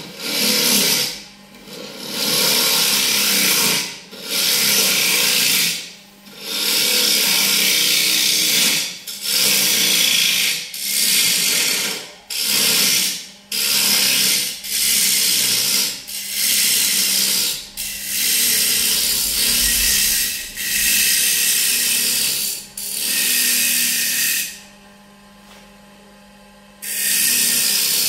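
A turning tool cutting a walnut blank spinning on a wood lathe, in a string of scraping passes of one to two seconds each with short breaks between them. A steady low hum from the running lathe carries on underneath, through a longer pause of about two seconds near the end.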